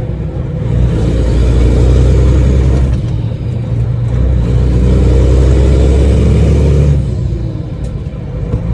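Semi truck's new Caterpillar diesel engine running under load, heard from inside the cab, a deep steady drone whose level drops off twice, about three and seven seconds in, and comes back up.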